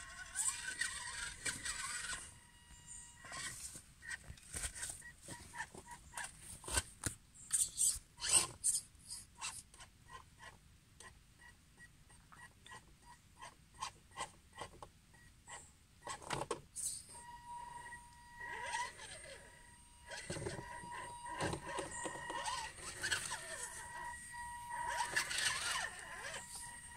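RC scale crawler's small electric motor and gearing whining in stretches, at the start and again through the latter part, as it crawls over tree roots. Scattered crackling clicks run through the middle, in the gap between the whines.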